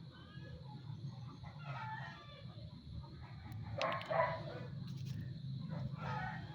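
Rooster crowing several times, over a steady low hum.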